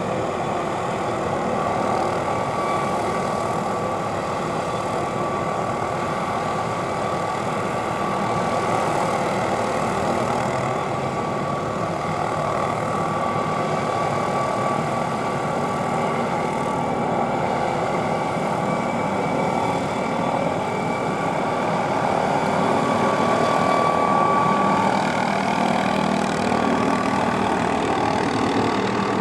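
MD 520N NOTAR helicopter running steadily overhead: turbine whine over the five-bladed main rotor, a little louder about twenty-four seconds in.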